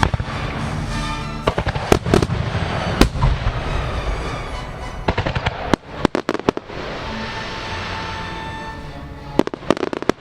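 Aerial firework shells bursting in three quick clusters of sharp bangs, about one and a half, five and nine and a half seconds in, over the music that a melody fireworks show is fired to.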